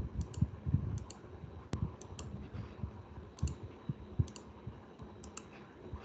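Computer mouse clicks: about a dozen short, sharp clicks scattered irregularly, several of them in quick pairs.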